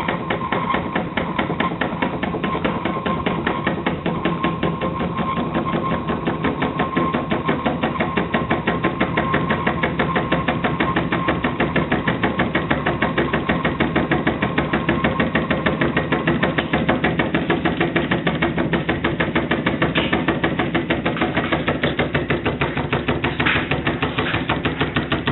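T E Haynes school-built hot air (Stirling) engine running at speed, its crank and flywheel mechanism making a rapid, even clatter, with the hiss of the gas torch flame heating its hot cylinder beneath it.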